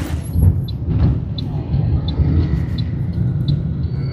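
A motor vehicle's engine running, heard from on board as a steady low rumble, with a faint tick about every 0.7 seconds.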